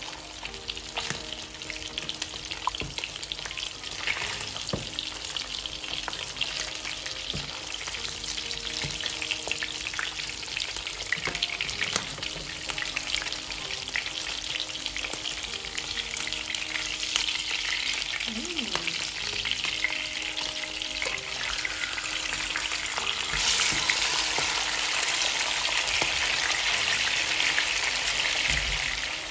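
Salmon steaks shallow-frying in hot oil in a nonstick pan: a steady crackling sizzle with scattered pops and occasional spatula taps. The sizzle grows louder about two-thirds of the way through, as a steak is turned onto its raw side.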